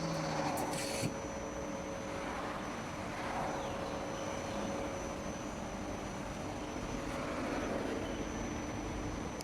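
Mori Seiki SL-3A CNC lathe running on a test run: a steady machine hum with a constant high whine, and a short hiss about a second in.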